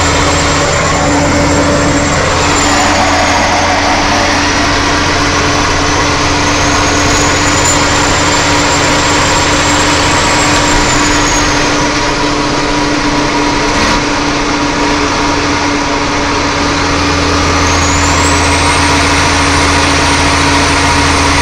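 Truck engine running steadily with continuous road noise, a constant low hum under a broad rushing noise and no rise or fall of a passing vehicle.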